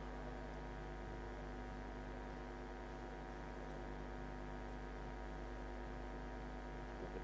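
Steady electrical mains hum, a low buzz with a stack of even overtones and nothing else changing.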